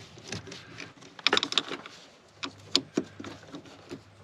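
A wrench working loose a battery terminal nut: scattered metallic clicks and rattles, with a quick cluster of clicks about a second in and a few more near the middle.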